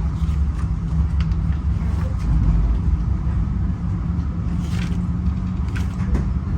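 Running noise inside a moving passenger rail car: a steady low rumble of the wheels on the rails, with a few faint clicks and knocks.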